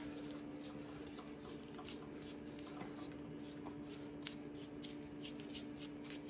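Stiff chip brush scratching over a painted concrete statue in quick, faint dry-brush strokes, laying light gray paint onto the raised detail, over a steady low hum.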